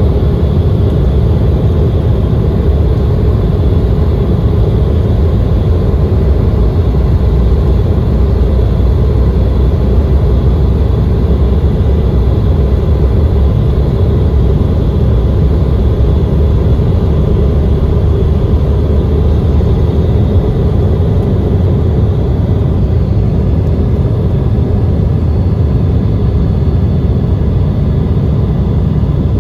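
Steady, loud roar of the Embraer ERJ-170's two CF34-8E turbofan engines and rushing air, heard from inside the passenger cabin during departure, with a few faint steady high tones over the low rumble.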